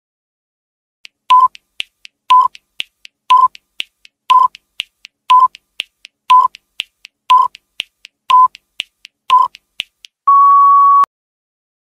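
Countdown timer sound effect: a short electronic beep every second, with fainter ticks in between, nine times, then one longer steady beep just under a second long that marks the end of the countdown.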